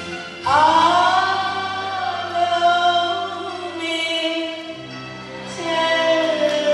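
A woman singing a Burmese song live into a microphone, over sustained instrumental accompaniment. About half a second in her voice comes in strongly on a note that slides up into pitch and is held. Another sung phrase starts near the end.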